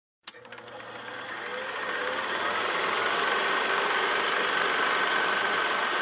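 Old film projector sound effect: a fast, even mechanical clatter with a faint high whine. It fades in over the first two seconds, then runs steadily.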